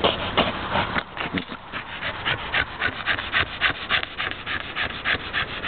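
Staffordshire Bull Terrier panting fast and evenly, about five breaths a second.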